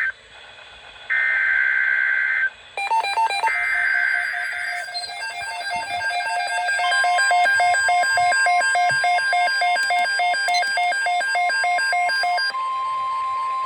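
Emergency Alert System opening: two shrill, warbling bursts of SAME header data tones, then a fast, evenly pulsed pattern of electronic beeps at several pitches. About seven seconds in, the steady NOAA Weather Radio alert tone joins and keeps sounding after the beeps stop.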